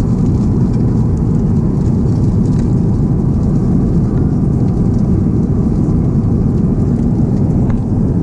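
Airbus A350-900 cabin noise in flight: a steady low roar of airflow and engines, unchanging throughout.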